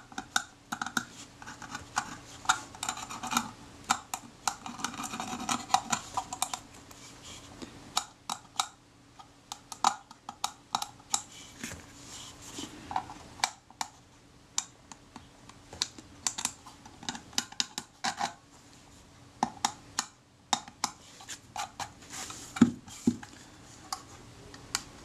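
A small pointed metal tool scraping and picking at green corrosion on the aluminium back of a Kodak Retina IIa camera: irregular sharp clicks and ticks, with stretches of fine scratching in the first few seconds.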